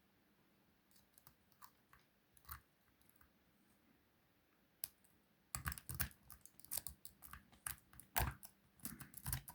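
Metal lock picks working inside a wafer lock's keyway: a few faint scattered clicks, then from about five and a half seconds in a dense run of sharp clicks and scrapes.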